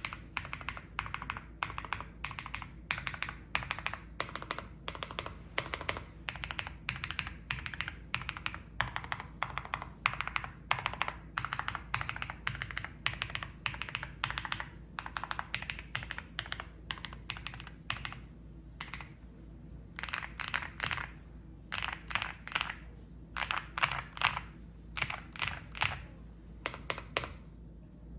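Typing on an Epomaker Galaxy80 mechanical keyboard with stock, factory-lubed White Marble linear switches: a fast, continuous run of keystroke clacks that breaks into shorter bursts with brief pauses in the last third.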